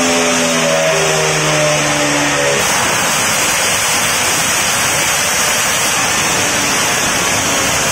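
Racing Vespa's two-stroke engine running hard on a roller dyno during a power run. For the first two and a half seconds its note shifts in steps, then it turns into a dense, rough noise with no clear pitch.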